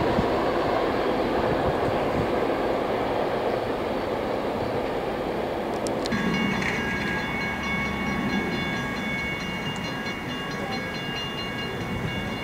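Freight train sounds. A steady rushing rumble for the first half, then, from about six seconds in, EMD GP38-2 diesel locomotives approaching with a low engine drone and several steady high tones ringing over it.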